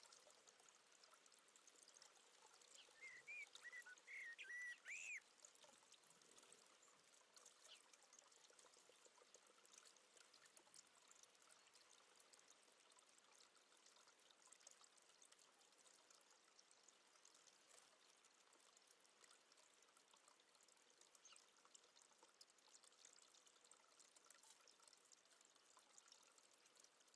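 Faint steady trickling of water. About three to five seconds in, a brief run of short, quick bird chirps.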